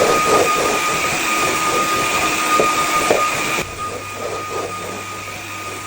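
HouseUp vacuum cleaner running with a steady motor whine and rushing airflow; about three and a half seconds in the rush drops to a quieter level while the whine carries on.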